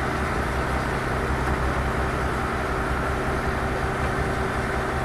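Fishing boat's engine running steadily, a constant hum that doesn't change.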